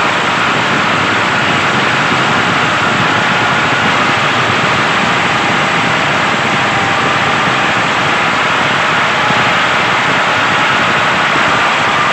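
Small electric motor and gears of a model tractor running steadily, with a faint wavering whine.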